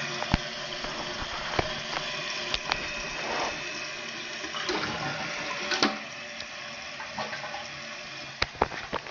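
Toilet tank refilling after a flush: a Fluidmaster 400A fill valve running with a steady hiss of water, a little quieter from about six seconds in. Several sharp knocks and clicks are heard over it.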